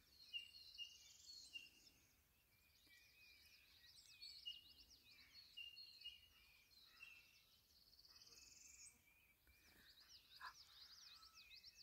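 Faint chorus of high chirping calls, with a buzzy rising trill about a second in and another around nine seconds in.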